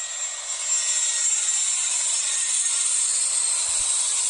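Airbus A320 jet engines passing close as the airliner touches down on the runway: a loud, steady rushing hiss that swells about a second in.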